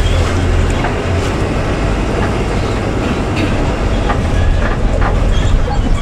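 Inside a bus on a broken asphalt road: the engine's steady low drone, with the body and fittings rattling and knocking irregularly over the bumps.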